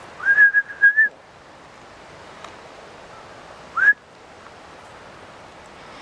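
A person whistling: a quick run of level, high whistles lasting about a second, then a short rising whistle about three seconds later.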